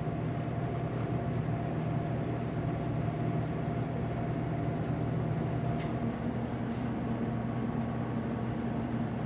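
Hot dog roller grill's drive motor humming steadily while the rollers stay still: the motor is powered but stalled, the rollers stuck.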